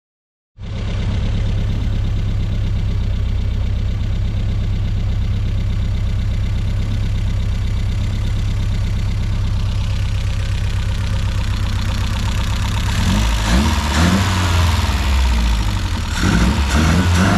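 Triumph Spitfire 1500's four-cylinder engine, warmed up, idling steadily, then revved with quick blips of the throttle in the last few seconds.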